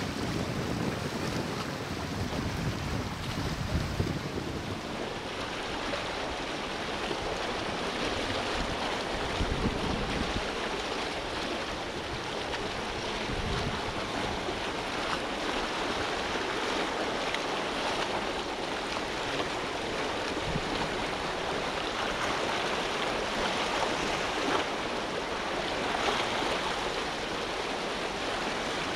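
Wind on the microphone over a steady rush of sea water and waves. The low wind buffeting is heaviest in the first ten seconds or so, then eases, leaving mostly the hiss of the water.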